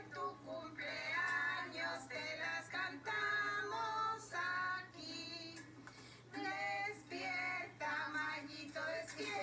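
A group of women and children singing together in held notes with short breaks between phrases, over a steady low hum. The sound is the playback of an old home video through a TV speaker.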